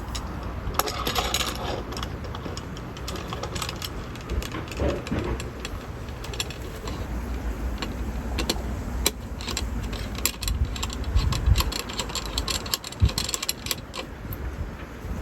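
Light clicks and clinks of small hard objects being handled, scattered irregularly over a steady low rumble.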